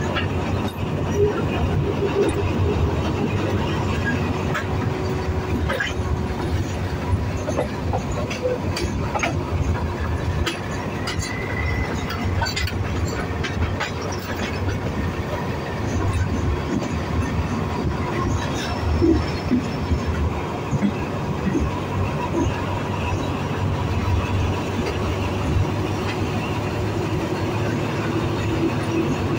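Alsthom diesel-electric locomotive running slowly with a steady engine drone. Its wheels click over rail joints and points, with a faint brief wheel squeal about a dozen seconds in.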